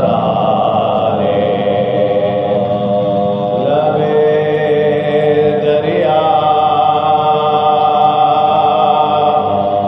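Soz khwani, a Shia mourning elegy, chanted unaccompanied by a group of male voices. They hold long drawn-out notes and shift to a new pitch about a third of the way in and again past the middle.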